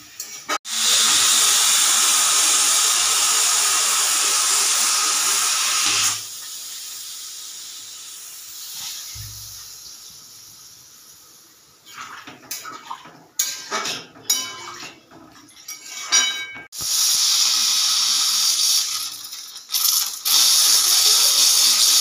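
Pressure cooker whistling as its weight lifts: loud hissing blasts of steam, the first lasting about five seconds, then a stretch of choppy sputtering bursts, then two more long blasts near the end. Frothy liquid is spitting out around the vent along with the steam.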